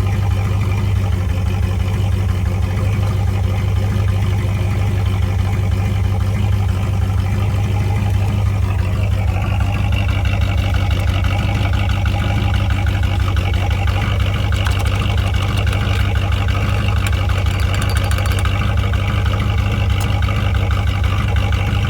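1982 Pontiac Trans Am's 5.0 V8 idling steadily, running with engine flush added to the oil. The tone of the idle shifts slightly about nine seconds in.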